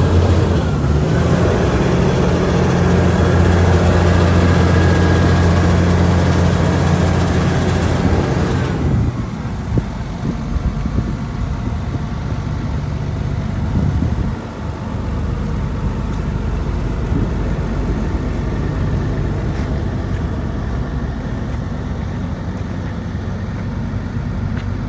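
Vögele Super 1900-2 asphalt paver's diesel engine running at a steady high speed, then dropping abruptly about nine seconds in to a lower, quieter idle that runs on steadily.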